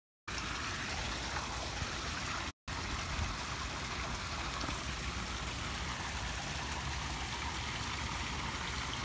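Steady rush of splashing water from a large public fountain, cutting out briefly about two and a half seconds in.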